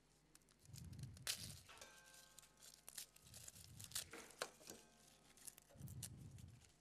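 Faint, scattered crackling and tearing of dry papery skin being peeled by gloved hands over a metal bowl.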